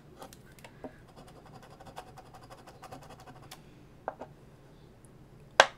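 Scratching the coating off a paper scratch-off lottery ticket: a run of fine, rapid scraping, then a couple of light taps and one sharp click near the end.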